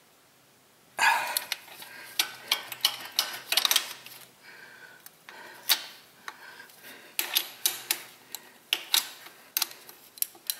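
Hand ratchet wrench clicking in short, irregular runs of sharp metallic ticks, starting about a second in, as the mounting bolts of a replacement starter motor are turned in.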